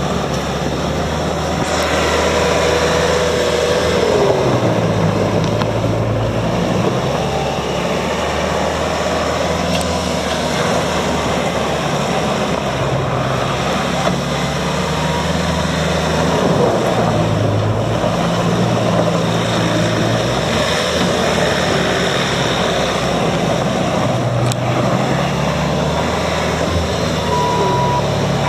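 Bobcat S650 skid steer's diesel engine running, its speed stepping up and down repeatedly as the machine is worked. Thin whines glide up and down over the engine sound.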